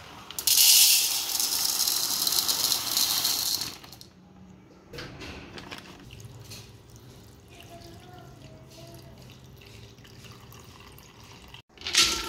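Dry chana dal (split chickpeas) poured from a plastic packet into a ceramic bowl: a loud, hissing rattle of grains lasting about three seconds. Then tap water runs steadily into the bowl of dal to rinse it. Near the end comes a brief loud rush as the dal is tipped into a steel pot.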